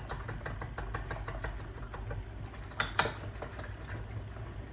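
A utensil beating a milk-and-egg mixture in a glass measuring cup, ticking against the glass about six times a second, with two louder clacks about three seconds in.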